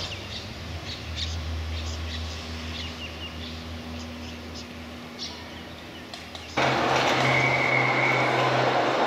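Small birds chirping over a low steady hum. About six and a half seconds in, the sound cuts abruptly to a louder steady rumble and hiss with a faint high whine.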